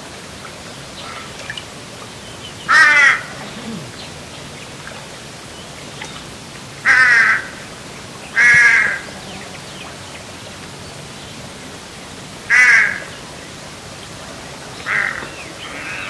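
A bird gives five loud, harsh calls, each about half a second long, at irregular intervals. A steady hiss runs beneath them.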